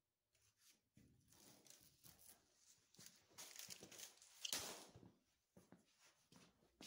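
Near silence: quiet room tone with faint rustling, and one brief soft rustle about four and a half seconds in.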